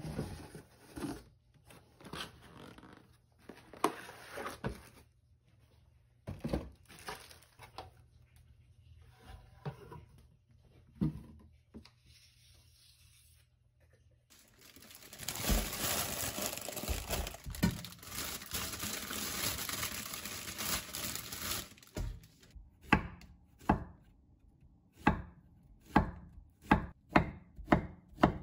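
Kitchen prep: a knife chopping on a cutting board, with scattered strokes at first and a steady run of about two chops a second near the end. In between comes a dense stretch of several seconds of rustling, tearing noise, like packaging being torn or crinkled.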